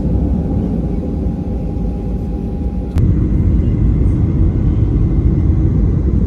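Steady low rumble inside a moving vehicle, with a faint steady whine over it. About halfway through the sound changes abruptly and the rumble gets louder.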